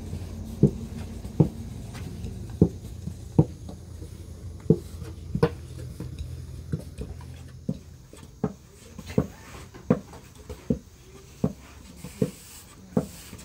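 Thin wooden rolling pins rolling flatbread dough on large metal trays, knocking sharply against the metal about once a second in an uneven rhythm. A low steady hum sits underneath for the first half.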